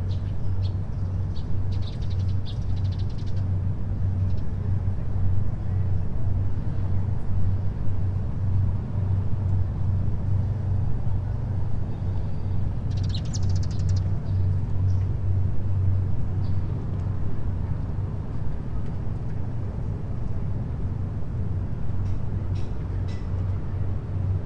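Waterfront ambience: a steady low rumble, with a few brief high chirps about two seconds in, in the middle and near the end.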